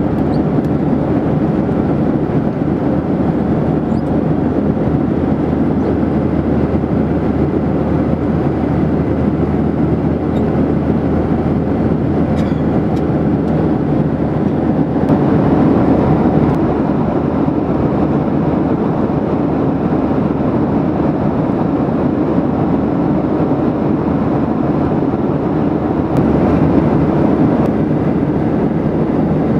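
Steady cabin noise of a Boeing 737-800 in flight, heard from a window seat beside the wing: a constant deep rush of airflow and CFM56 engine noise that swells slightly twice.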